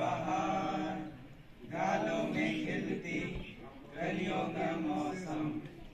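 A group of teenage boys singing together in unison without instruments, in phrases of a second or two separated by short breaths.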